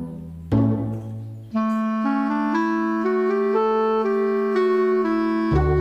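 Background music: a struck bass note, then a held melody on a reedy wind instrument that steps upward over a sustained low note.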